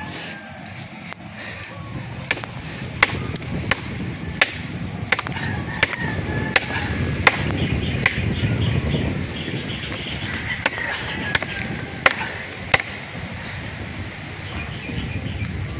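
Repeated chopping of a hand-held blade into a tree trunk: a steady run of sharp strikes about every 0.7 seconds, with a short pause about two thirds of the way through, stopping near the end.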